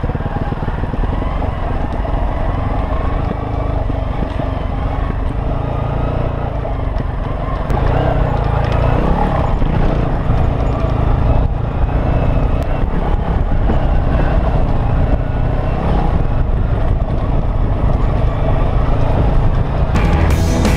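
Enduro motorcycle engine running while under way, a dense steady drone that gets louder about eight seconds in.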